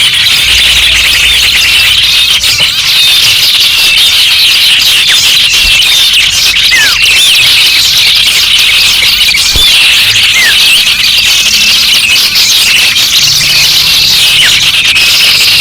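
Dense chorus of many small garden birds chirping and twittering at once: a loud, continuous high-pitched chatter, with an occasional short falling whistle.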